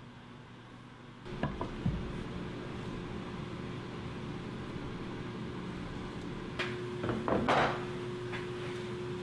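Plywood pieces knocking and clattering as they are handled and set against a wooden box joint jig on a table saw, in a few knocks about a second in and a busier cluster near the end, over a steady hum that starts about a second in.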